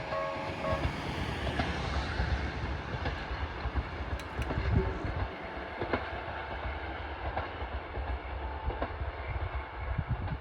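Sangi Railway 851 series electric train (ex-Seibu N101/701 series cars) running past with a steady rumble, its wheels clicking over the rail joints at uneven intervals. A level-crossing bell rings for the first second, then stops. From about halfway the sound grows duller, as the train moves away.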